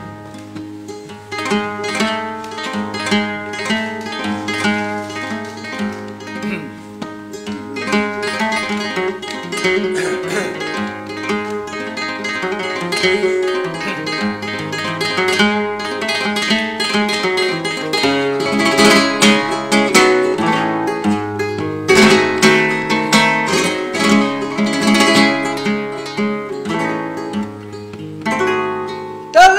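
Flamenco guitar playing the solo introduction to a fandango: picked melodic lines mixed with sharp strummed chords, growing louder and busier in the second half.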